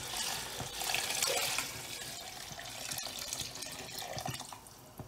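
Chicken stock poured in a steady stream from a glass bowl into a pot of cooked masala and chicken, splashing into the liquid. The pour is strongest at first, thins out and stops near the end.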